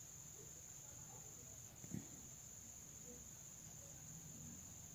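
Near silence: room tone with a faint steady high-pitched whine and one faint tap about two seconds in.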